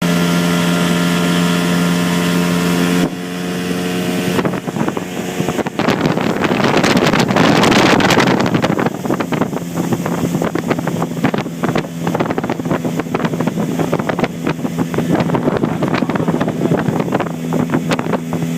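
Motorboat engine running with a steady hum, the hull knocking and splashing on the water and wind buffeting the microphone. The engine note shifts about three seconds in. A loud rush of water and wind builds a few seconds later, and the steady engine hum comes back clear near the halfway point.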